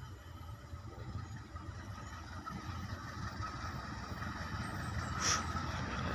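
Diesel locomotive hauling a passenger train on approach, its low engine rumble growing steadily louder. A short, higher-pitched sound stands out a little after five seconds in.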